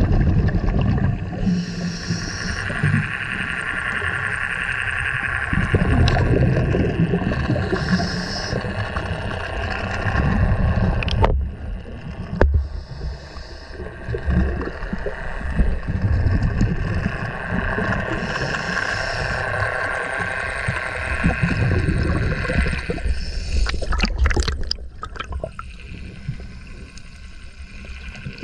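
Underwater sound of scuba divers breathing through their regulators: a rush of exhaled bubbles every several seconds over a steady, muffled low rumble of water.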